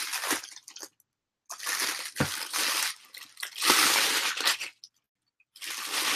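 Plastic wrapping crinkling as it is handled and pulled off an LCD screen panel, in four bursts of a second or so with short pauses between.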